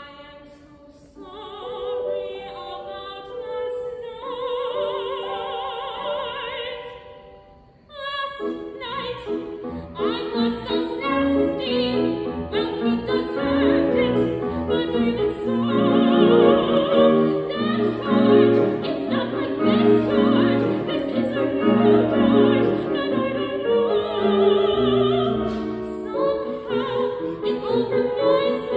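A woman singing a musical-theatre song in a classical style with grand piano accompaniment, with vibrato on held notes. After a short break about eight seconds in, the voice and piano come back fuller and busier.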